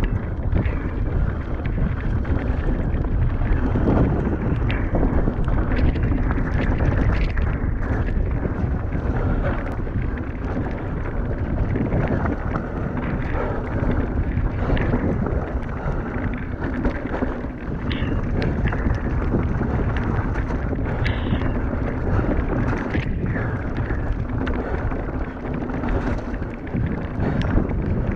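Wind rushing over an action camera's microphone as a mountain bike runs downhill, tyres rolling on wet dirt and gravel, with the bike rattling and knocking over bumps and roots.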